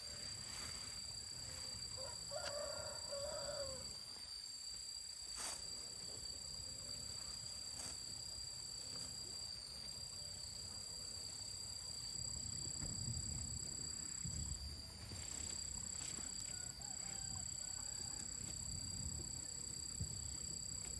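A chicken calls once, briefly, a couple of seconds in, over two steady high-pitched tones. A few sharp clicks and some low rumbling follow.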